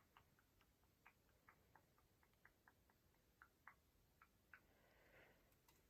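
Near silence with faint, irregular light clicks, a few a second.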